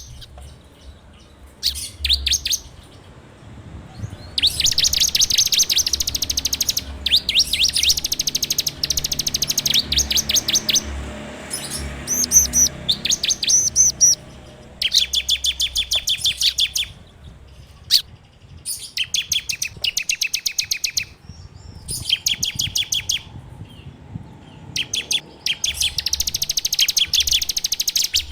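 Ciblek (prinia) singing its rapid, rattling 'ngebren' trill: runs of fast, high, evenly repeated notes, each lasting a second or two, broken by short pauses.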